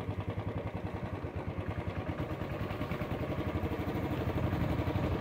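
Motorcycle engine running as it is ridden along a street, a rapid steady low pulsing that gets a little louder toward the end.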